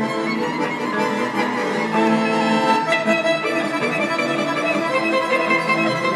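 Violin and guitar playing an instrumental tune live, the violin carrying a melody of held notes over the guitar.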